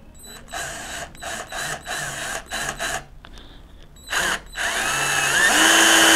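Xenon CDD 505 cordless drill-driver driving a screw straight into hard wood with no pilot hole. The motor goes in several short trigger bursts, then runs steadily with a whine that rises in pitch near the end.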